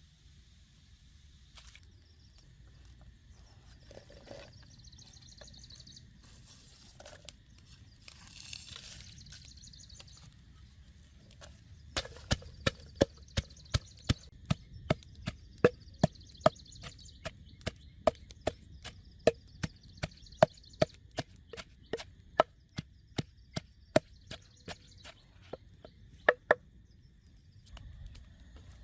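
A knife chopping on a wooden cutting board: a steady run of sharp chops, about two or three a second. The chopping starts around the middle and stops a couple of seconds before the end, after some quieter handling and rustling.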